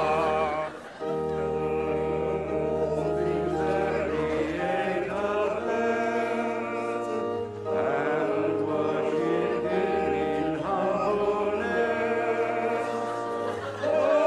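Church congregation singing a hymn over held organ chords with a sustained low bass, pausing briefly between lines.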